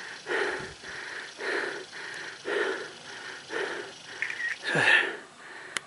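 A hiker's heavy, rhythmic breathing close to the microphone, about one breath a second, with a louder sighing exhale near the end: out of breath from hiking in the heat. A sharp click just before the end.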